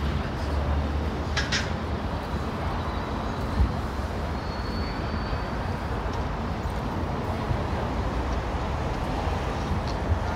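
Steady city street noise, mostly a low traffic rumble, with a couple of short sharp clicks about a second and a half in and a single low thump about three and a half seconds in.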